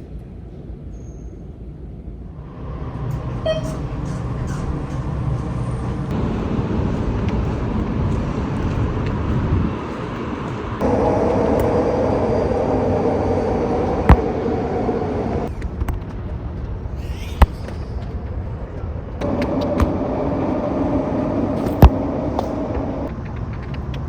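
Outdoor street ambience with a steady low rumble of vehicle traffic, changing abruptly several times, with a few sharp clicks.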